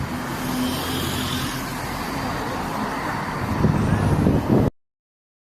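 Road traffic: motor vehicles passing with a steady engine hum and tyre noise, growing louder near the end. It then cuts off abruptly to silence.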